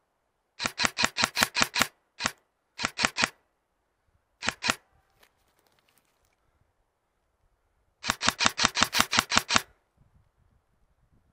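Airsoft gun firing in bursts of sharp, rapid shots, about seven a second. It fires a burst of about nine shots, then a single shot, then two short bursts of three or four. Near the end comes a longer burst of about a dozen shots.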